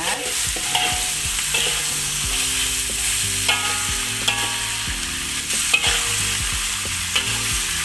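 Chicken pieces, pumpkin cubes and chillies sizzling in oil in a metal wok. A metal spatula scrapes and clacks against the pan as they are stir-fried.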